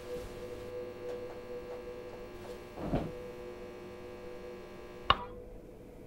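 A faint steady hum, then a single sharp click of a round wall-mounted rocker light switch being flipped off about five seconds in, after which the background hiss drops away.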